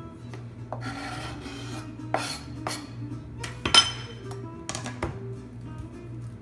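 A knife blade scraping diced shallot off a plastic cutting board onto a ceramic plate, followed by several clinks and knocks of the knife and board against the plate, the loudest a little past halfway. Background music plays throughout.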